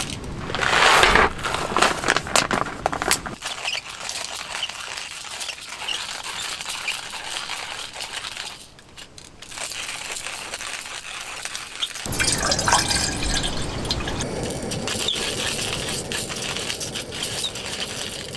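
Coffee beans poured from a bag into a stainless hand coffee grinder, rattling in over the first second or so, then the grinder's crank turned to grind the beans, a steady run of small clicks.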